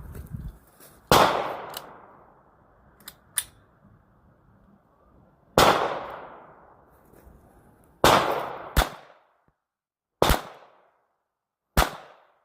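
Six gunshots from a firearm, fired singly and unevenly spaced, each with a short echoing tail; there is a long pause after the first shot, and the last four come more quickly. A few faint clicks fall between the first and second shots.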